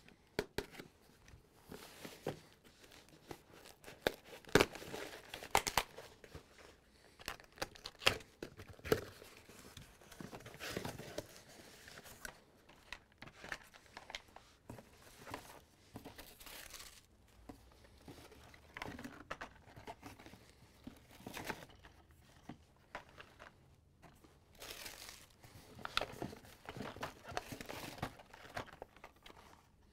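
A cardboard shipping case being opened: packing tape slit, flaps pulled open, then packing paper crinkling and blister-carded die-cast cars rustling and knocking as they are pulled out. It comes as many short rustles and sharp clicks with brief pauses between them.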